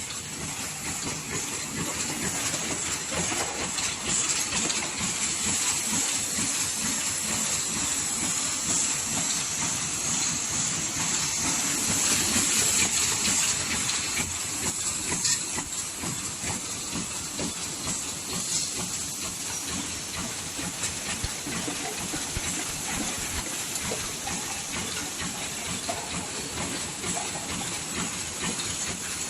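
Paper cup sleeve machine running at production speed: a dense, rapid mechanical clatter with a steady high hiss.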